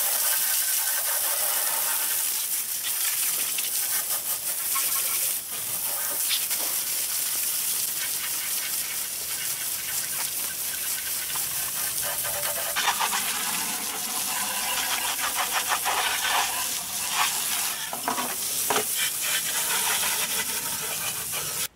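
Garden hose spray nozzle jetting water, a steady hiss with splashing as it washes grease and grime off an outboard motor. In the second half the sound turns more uneven and splashy as the spray hits loose plastic cowl pieces on concrete.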